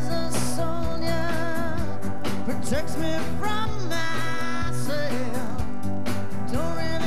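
Live rock band with a female lead vocalist singing over electric guitars, bass and drums, with held, wavering sung notes over a steady beat.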